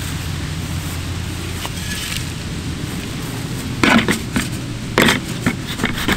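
Shovel blade jabbed down into soil in a plastic bucket, giving several sharp, scraping strikes in the second half, the loudest about four and five seconds in, over a steady low hum.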